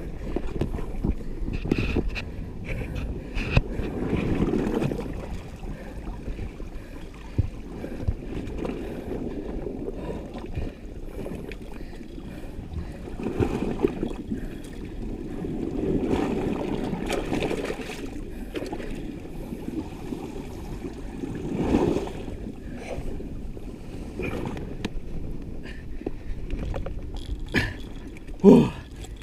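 Sea swell washing and surging against the foot of a rock ledge, rising and falling every few seconds, with wind buffeting the microphone and scattered clicks and knocks. A short, loud sound comes near the end.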